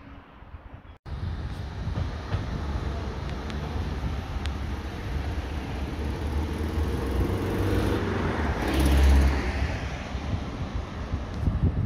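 Road traffic noise, starting abruptly about a second in and swelling to its loudest around nine seconds as a vehicle passes.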